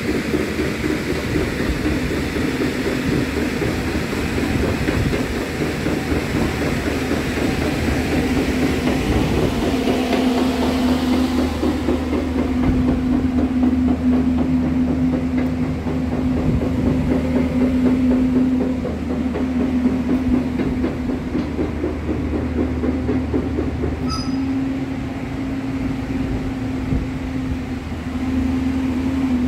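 Heavy diesel truck engine idling steadily, a constant low hum, with a rushing hiss over it that drops away about twelve seconds in.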